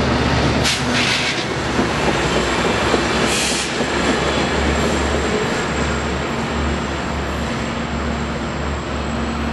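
Amtrak California bilevel passenger cars rolling past close by and then away down the track: a steady rumble of wheels on rail that slowly fades, with two brief hissing bursts about one and three and a half seconds in.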